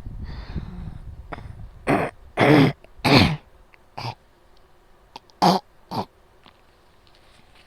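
Harsh coughing during an asthma attack. A quick run of three strong coughs about two seconds in is followed by three weaker, spaced-out coughs.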